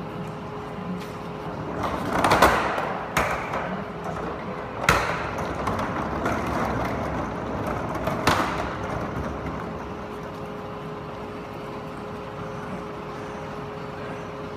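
Forklift running steadily in the background, with a scraping rush about two seconds in and two sharp knocks, about five and eight seconds in, as the boat hanging in slings is handled.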